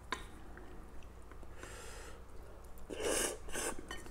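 A person slurping fried instant noodles (mi goreng) off chopsticks: two short, loud sucks about three seconds in, after a faint click of the chopsticks.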